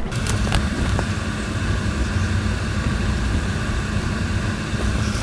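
A steady, unchanging low mechanical drone, like a machine running, that starts and cuts off abruptly.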